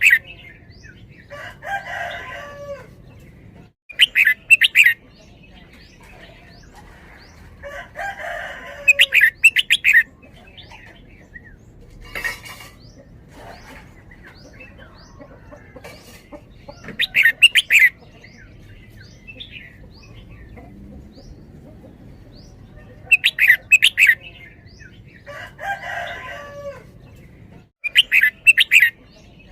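Red-whiskered bulbul singing: short bright phrases of several quick notes, repeated about every five seconds, with a few lower, rougher calls in between and faint chirps of other birds in the background.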